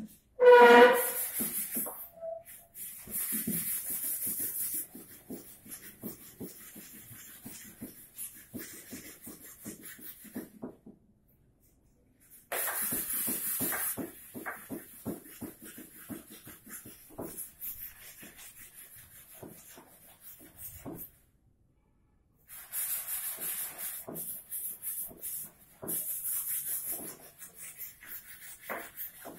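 Hand rubbing on a carved wooden chair frame: quick, rhythmic scraping strokes, with stretches of high hiss. A short pitched call comes just after the start.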